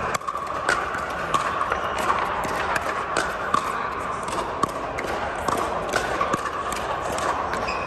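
Sharp pops of pickleball paddles striking plastic balls on several courts, coming at irregular intervals over a steady background hum.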